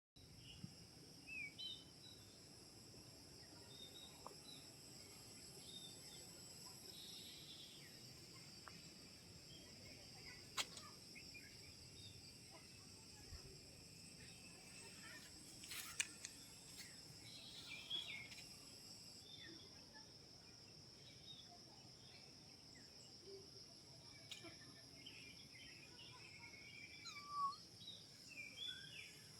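Faint woodland ambience: a steady high-pitched insect drone with scattered short bird chirps and a few sharp clicks.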